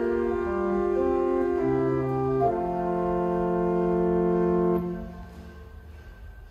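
Newly rebuilt church pipe organ playing chords, ending on a long held final chord that releases a little under five seconds in, its sound then dying away in the church's reverberation.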